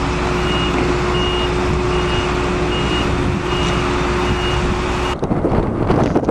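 Iveco lorry's diesel engine running steadily while a high reversing-alarm beep repeats about every 0.8 seconds. About five seconds in, the sound cuts abruptly to wind buffeting the microphone.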